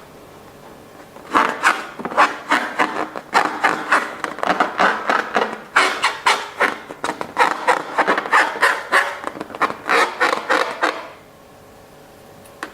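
Slime being worked by hand: a quick run of clicks and squelches, about three or four a second, starting about a second in and stopping near the end.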